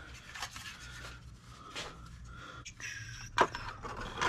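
Plastic back cover being fitted onto a car infotainment touch-screen unit: light rubbing and scraping of plastic parts, with one sharp click about three and a half seconds in.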